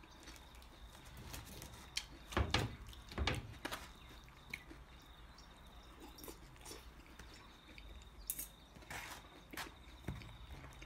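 Quiet eating sounds: a metal knife and fork cutting, scraping and tapping against a polystyrene takeaway box, with chewing. The sounds come as a scattering of short clicks and scrapes.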